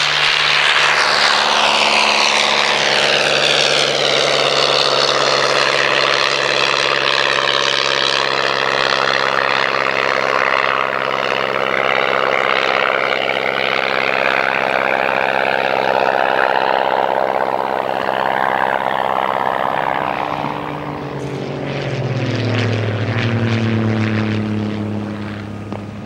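Miles Messenger's 140-horsepower de Havilland Gipsy Major engine and propeller droning steadily as the light aircraft flies past. The engine note drops in pitch near the end.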